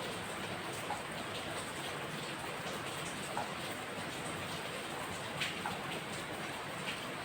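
Steady rain, with scattered individual drops ticking loudly onto a surface now and then.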